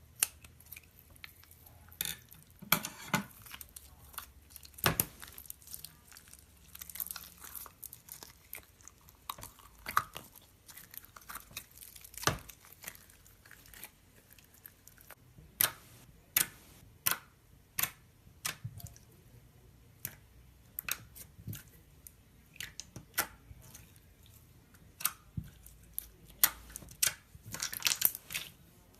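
A slime-filled stress ball being cut open: irregular sharp clicks and crunchy crackles from the blade going through its skin, with a few longer tearing rustles about three seconds in, around seven seconds and near the end.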